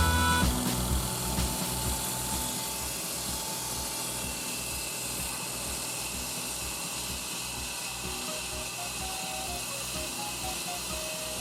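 Daihatsu Tanto (L375S) three-cylinder engine running at idle, a steady hiss with a low pulsing underneath and a thin, steady high whine from about four seconds in. This is the abnormal noise from around the accessory belt, which the owner cannot place among the A/C compressor, alternator, power-steering pump and water pump, and which the alternator is replaced for.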